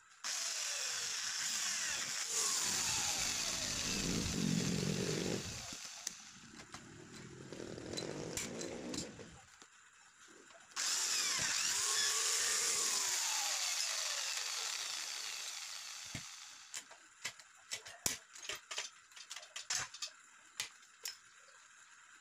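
Handheld corded electric drill boring into metal square tubing in two runs: it starts about a second in and runs for several seconds, goes quiet, then starts again abruptly about halfway through and fades out. Near the end come a series of sharp clicks and knocks.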